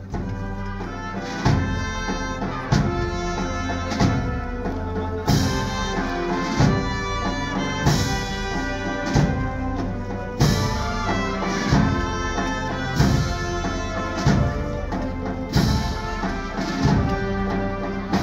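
A Spanish wind band (banda de música) playing a slow processional march: sustained brass and woodwind chords over regular drum strokes about every 1.3 seconds.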